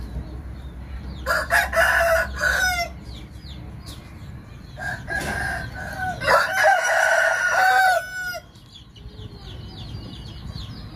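Fighting-cock rooster crowing twice, a short crow followed by a longer one.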